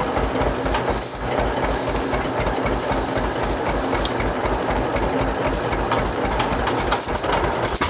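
The two-cylinder engine of a 1936 John Deere D tractor running with a steady low, even beat. Hissing comes and goes over it about a second in and again around three seconds, and a run of sharp clicks comes near the end.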